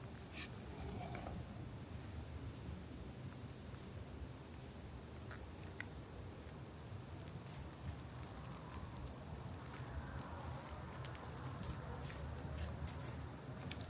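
Insects chirping in a faint, steady rhythm of high, thin pulses, about one and a half a second, in a quiet woodland.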